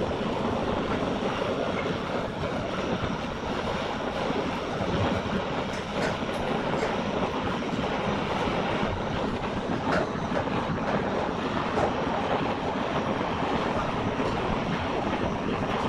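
Handheld gas blowtorch burning with a steady hiss as its flame scorches the surface of a turned areca-root vase, with a few faint clicks.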